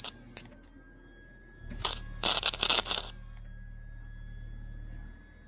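Flux-core MIG welder: a short burst of sputtering arc crackle lasting about a second and a half, with the machine humming under it. The hum goes on for about two more seconds with no arc after the crackle stops, the sign of the wire binding and not feeding, which the owner blames on the wire getting caught up.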